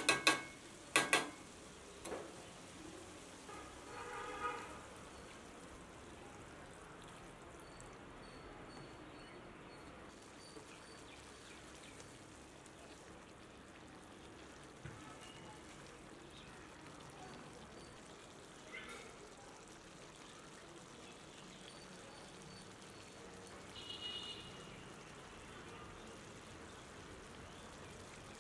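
Mutton curry sizzling steadily in a pan, with a few sharp clanks in the first two seconds.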